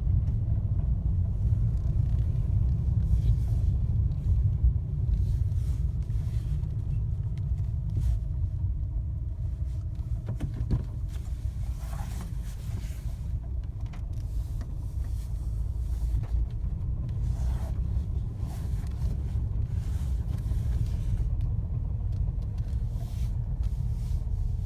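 Fiat Panda running with a steady low rumble and a faint whirring whine that slowly drifts up and down in pitch, with a few scattered clicks. The owner puts the clicking and whirring down to a gearbox problem.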